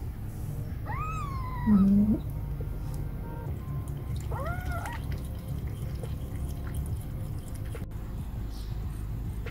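Newborn kittens mewing: two short, high, rising-and-falling mews, about a second in and again about four and a half seconds in. Just after the first mew comes a brief, louder low-pitched sound.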